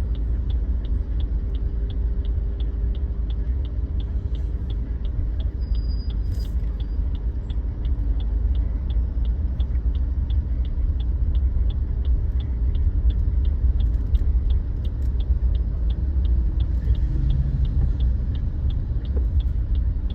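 Road and engine rumble inside a moving car, with a turn-signal indicator ticking steadily at about two and a half ticks a second.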